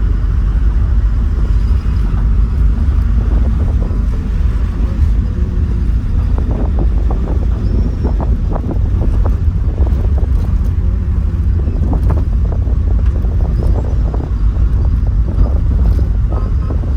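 Steady low rumble of a moving taxi heard from inside, with frequent short rattles and knocks from about six seconds in, as on a rough road.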